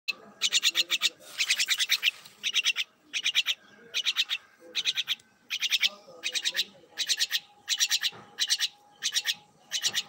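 Jungle myna calling: short bursts of rapid, high, chattering notes, repeated a little more than once a second.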